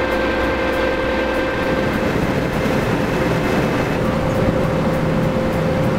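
Boat engine running steadily, a constant mechanical drone with a steady hum.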